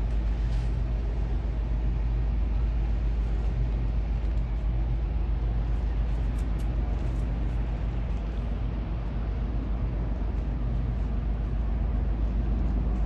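Cruise ship's engines running as it gets under way: a steady deep rumble with a faint steady hum over it.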